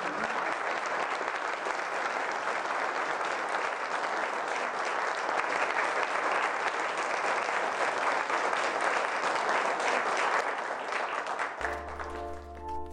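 Applause from a crowd, an even clapping that stops near the end as music comes in with sustained notes over a low bass.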